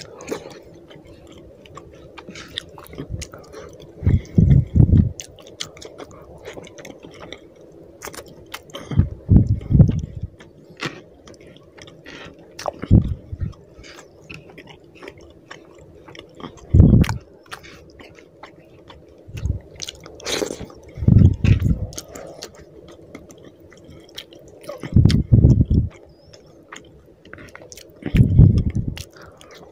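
Close-miked chewing of a handful of rice and fish curry eaten by hand: wet mouth smacks and small clicks throughout, with louder bouts about every three to four seconds.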